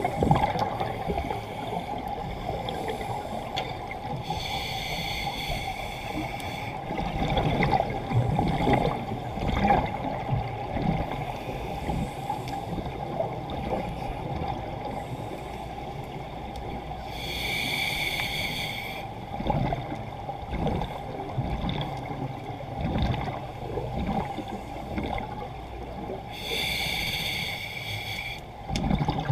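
Scuba diver breathing through a regulator underwater: three hissing inhalations spaced several seconds apart, with bubbling, gurgling exhalations between them.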